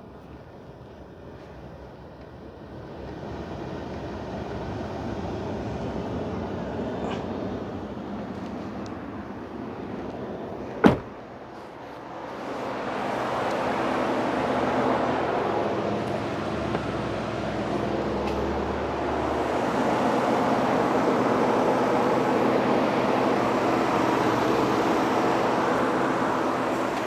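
2016 Ford F-150's 3.5-litre V6 running so the newly added A/C oil circulates. It is a steady hum that grows louder a few seconds in and again about thirteen seconds in, with a single sharp click about eleven seconds in.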